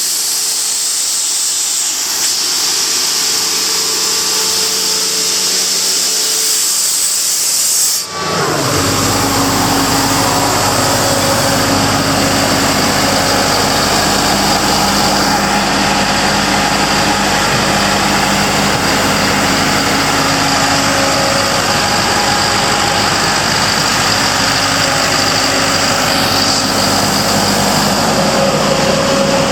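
Atlas Copco XAS400 diesel portable air compressor running. For the first several seconds a loud hiss dominates. About eight seconds in the sound changes abruptly, and from then on the engine's steady low running sound comes to the fore under the hiss.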